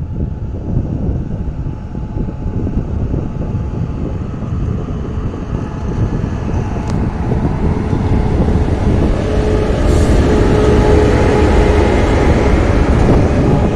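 Hitachi E-1250 class electric locomotive E-1254 approaching and passing close by, its rumble on the rails growing louder. A steady hum joins in as it goes past, about two-thirds of the way through.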